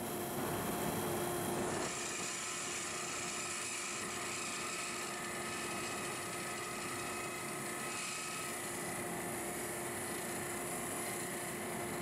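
Wood lathe running with a steady motor whine while a turning tool cuts into a spinning Osage orange blank, giving a continuous shaving, scraping noise as chips fly off. The cutting is a little louder for the first two seconds, then settles.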